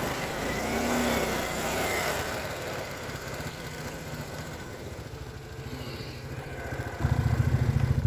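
ATV engine running at low speed along a rough trail, louder for about the last second.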